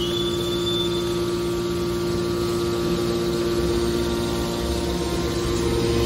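Hydraulic power unit of a scrap metal baler running: a steady motor-and-pump hum with a strong low tone. A high whine holds for about the first second and then fades.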